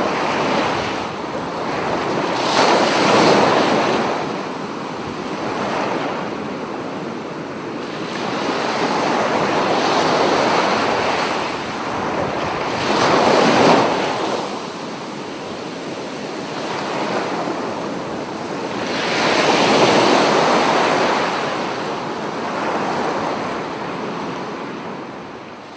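Ocean surf: waves breaking and washing up a beach, the rush swelling and easing every few seconds, fading out at the very end.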